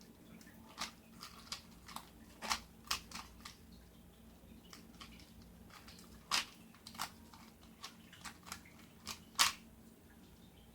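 Plastic Rubik's Cube layers clicking as they are turned quickly by hand during a speed solve: irregular sharp clicks, one or two a second, with the loudest about six and nine and a half seconds in.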